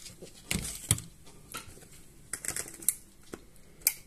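Irregular sharp clicks and taps of a spoon and plastic food packaging being handled at the table, about half a dozen in all, the loudest just under a second in and near the end.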